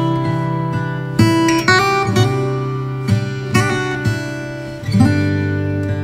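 Background music: an acoustic guitar playing chords, with a new chord plucked about every second.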